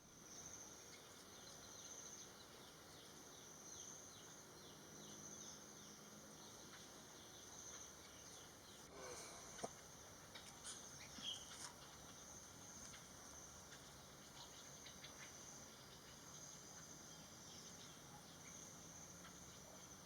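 Faint insect chirring, a steady high hum that swells and fades about every one and a half seconds, with a few short sharp sounds about halfway through.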